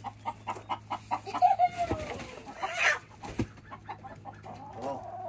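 Backyard chickens clucking in a string of short calls, with one longer call falling in pitch about a second and a half in.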